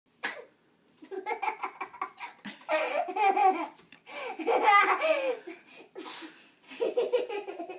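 A young child laughing hard, in several bouts: quick rhythmic giggles and longer belly laughs with short breaks between them.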